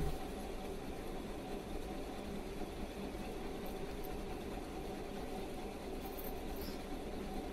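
Steady machine hum with a few constant tones over a low hiss, holding unchanged, with one short knock at the very start.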